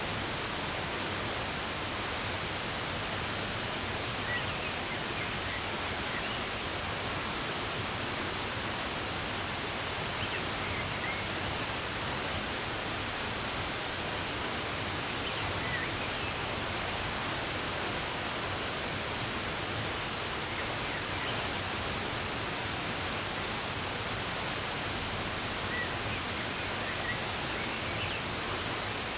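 Running water rushing steadily, with faint bird chirps here and there over it.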